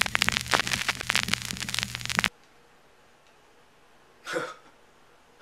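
Old-film crackle sound effect: dense rapid clicking and crackling over a steady low hum, cutting off abruptly a little over two seconds in. Quiet room tone follows, with one brief cough-like voice sound near the end.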